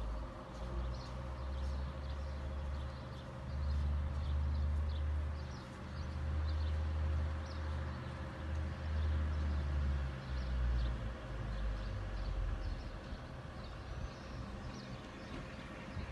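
Birds chirping in short, repeated calls over a low rumble that swells and fades every second or two, with a faint steady hum underneath.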